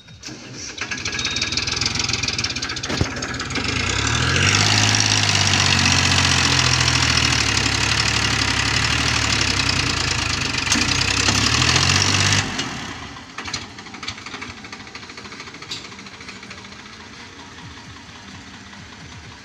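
Diesel tractor engine pulling hard under load as the tractor hauls a loaded soil trailer up a muddy slope. The engine note climbs about four seconds in, holds loud and steady, then falls away and cuts back sharply about twelve seconds in. After that the engine runs much quieter.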